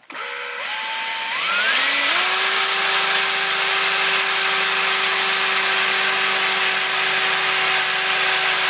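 Electric hand drill spinning up in a few steps over about two seconds, then running steadily at full speed with a high whine as its bit drills into the welded-in steel pin holding a rifle muzzle brake.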